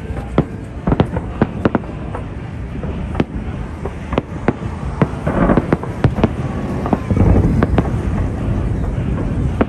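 Fireworks display: a rapid, irregular run of sharp bangs and cracks over a steady rumble. About five seconds in, and again around seven seconds, the bursts come thicker and louder.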